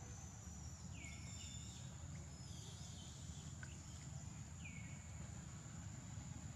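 Outdoor forest ambience: a steady high-pitched insect drone over a low rumble, with two short calls that drop in pitch, about a second in and again near five seconds.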